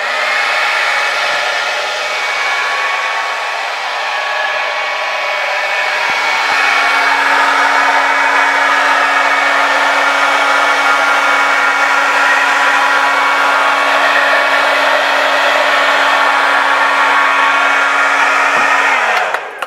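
Handheld hair dryer running steadily, its fan blowing a jet of air with a steady hum; it is switched off near the end and the hum falls away.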